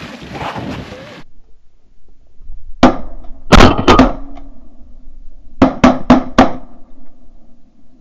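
Shotguns firing at flying Canada geese: a rapid volley of about four shots about three seconds in, then four more in quick succession about two seconds later, each with a short echo.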